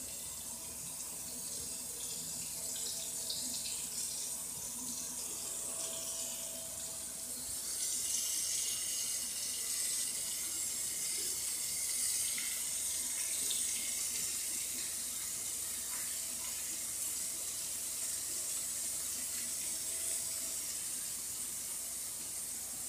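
A steady hiss of floured shrimp frying in hot oil, mixed with a kitchen tap running. It gets a little louder about eight seconds in.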